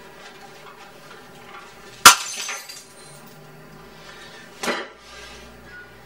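A sudden loud crash about two seconds in, ringing on for most of a second, then a second, smaller knock a couple of seconds later.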